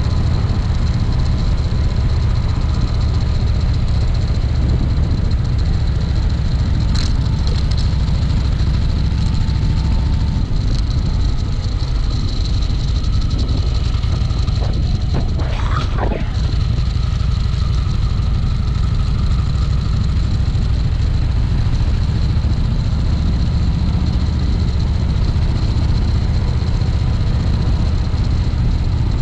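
Harley-Davidson V-twin motorcycle engine running steadily on the move, a heavy low drone throughout. A brief rising-and-falling tone passes about halfway through.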